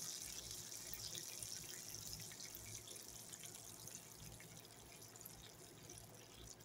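Bacon sizzling faintly in an electric skillet: a steady, high, crackly hiss that slowly fades.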